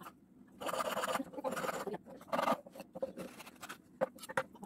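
A hand file rasping across the notches of a wooden ladle handle in a few short strokes, followed by several light clicks and taps of wood and tool on the bench.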